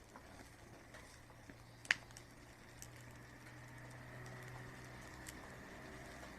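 Campfire crackling faintly with scattered small pops from the burning wood, and one sharp, louder pop about two seconds in. A faint low hum builds in the background from about halfway through.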